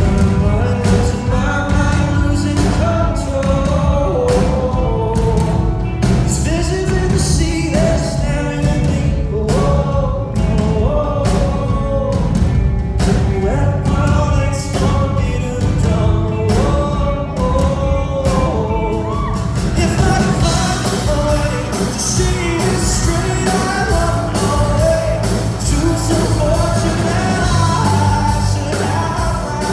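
Live pop-rock song with a male lead vocal singing over a steady beat. About twenty seconds in, the full band comes in with cymbals and the sound grows fuller.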